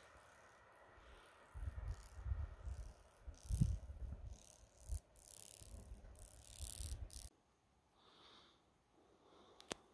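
Wind buffeting the microphone in gusts, with a rumbling low thudding and bursts of hiss, which cuts off abruptly a little after seven seconds; a single faint click near the end.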